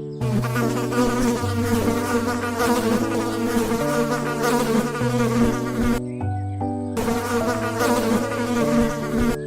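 Bees buzzing: a dense, steady drone with a wavering pitch.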